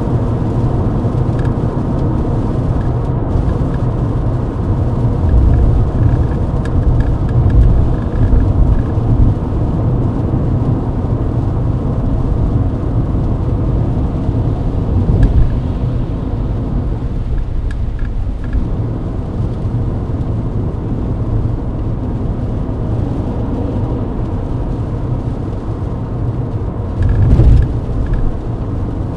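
Mercedes-Benz W124 E-Class at highway speed in the rain, heard as steady low road and engine rumble with tyre noise on the wet road. Louder low surges come about six to nine seconds in and again near the end.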